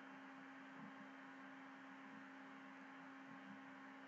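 Near silence: room tone, a faint steady hum with low hiss.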